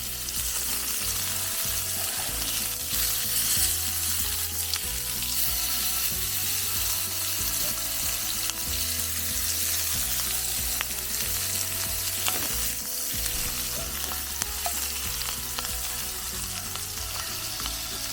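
Food sizzling and spitting in a hot pan: a steady frying hiss with scattered small pops.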